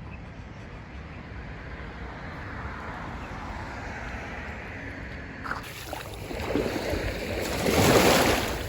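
Lake waves washing onto the shore, with a steady low rumble of wind on the microphone; the wash grows louder and one wave surges in near the end.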